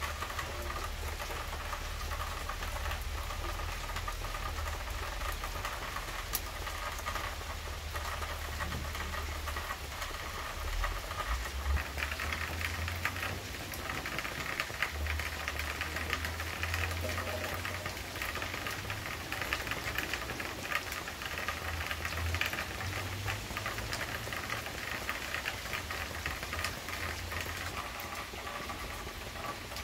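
Steady rain, a dense patter of drops on leaves and wet surfaces, with a low rumble underneath.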